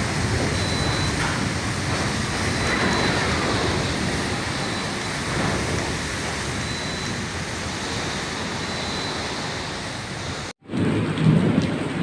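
Heavy rain in a storm, a steady rushing hiss with a low rumble underneath. It cuts out abruptly near the end, then resumes louder.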